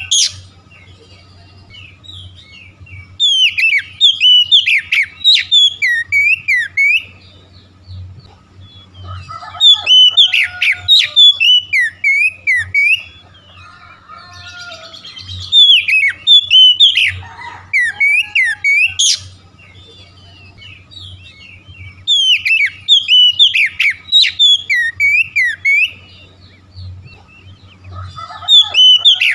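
Oriental magpie-robin (kacer) singing in loud phrases of rapid, sweeping whistled notes, in bursts of about three to four seconds with short pauses between them. A faint low hum runs underneath.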